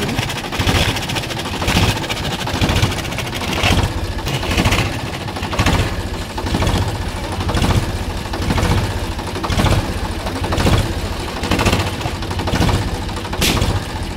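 Diesel tractor engine idling, its exhaust chugging out of the vertical exhaust pipe into a balloon stretched over it, rising and falling in loudness about once a second. A single sharp crack near the end.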